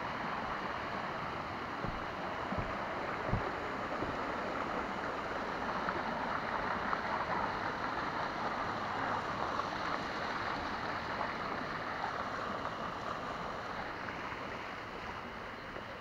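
A hot-spring stream rushes and splashes over rocks in a steady wash that eases off near the end. A few low thumps come about two to three seconds in.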